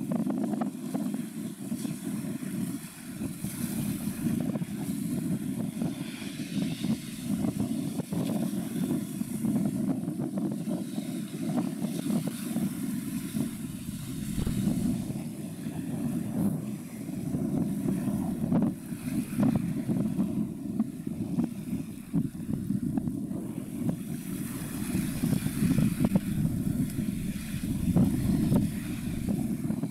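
Low, steady engine rumble of a harbour tug working alongside a passing ultra-large container ship.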